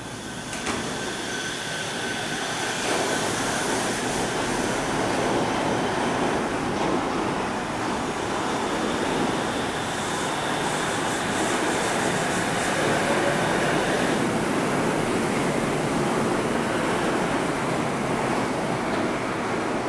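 Shonan Monorail suspended monorail train pulling out of the station. Its motor whine and running-gear noise build over the first few seconds, then hold as a steady rush while the cars pass, easing off near the end.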